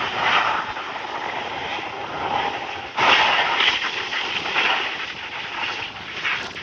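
Boeing 757 jet engines rushing during the landing rollout, louder from about three seconds in. The aircraft's number two engine has its thrust reverser inoperative, which is taken to give the engine sound its odd character.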